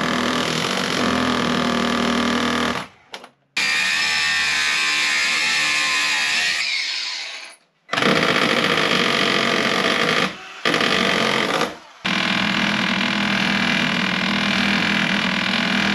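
Electric power tool running in several bursts of a few seconds, each started and stopped abruptly; after one burst, about seven seconds in, the motor winds down with falling pitch.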